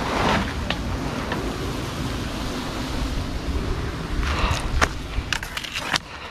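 Steady wind rushing over the microphone, with a cluster of sharp clicks and knocks between about four and six seconds in.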